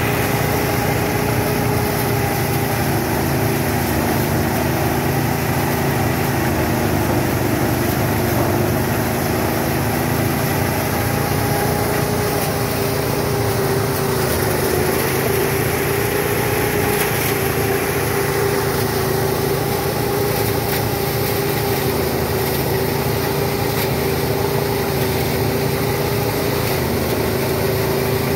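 Small engine powering a rice thresher, running steadily at a constant speed.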